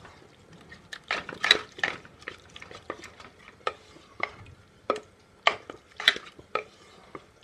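A spatula scraping and tapping against a cooking pan as keema (mince) is stirred and fried with yogurt over low heat. The strokes are irregular, with the loudest cluster about a second and a half in.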